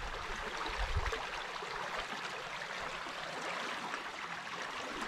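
Water rushing steadily out through a breach blasted in a beaver dam, the pond draining down the channel. A brief low rumble about a second in.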